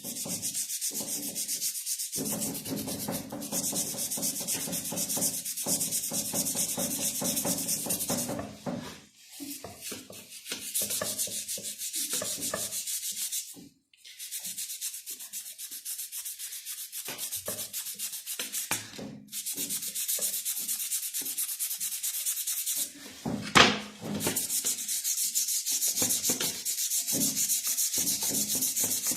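Rapid back-and-forth scrubbing by hand on a motorcycle's rear wheel hub as cleaner is worked into the dirt and rust. The scrubbing stops briefly a few times, and one sharp knock comes about two-thirds of the way through.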